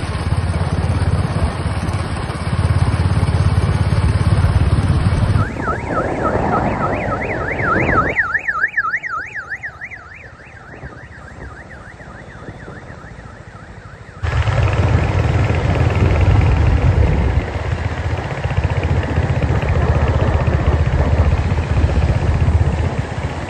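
Steady low outdoor rumble of wind and road noise. About six seconds in, a warbling electronic siren sweeps up and down about three times a second for a few seconds, then the rumble drops away before returning.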